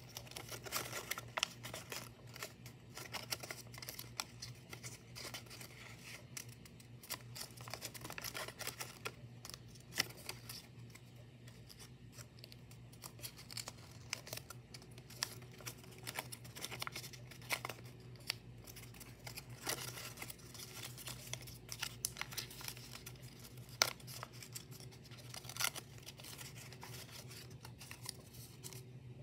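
Origami paper being folded and creased by hand: faint, irregular rustling and crinkling with scattered crisp little clicks as the paper is pressed and bent.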